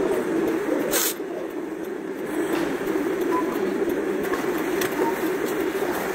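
Steady rumble of a vehicle in motion, heard from inside the cabin, with a single sharp click about a second in.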